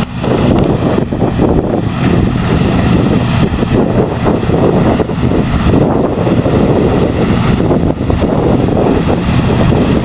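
New Holland TX66 combine harvester running steadily while harvesting wheat: a constant engine drone under the noise of the threshing machinery, with some wind on the microphone.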